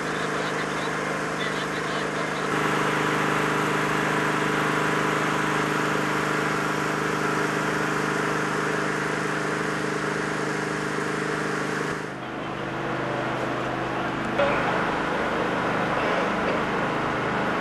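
A machine engine running with a steady hum, with faint voices under it. About two-thirds of the way in the hum stops and gives way to quieter outdoor noise, broken by one sharp knock.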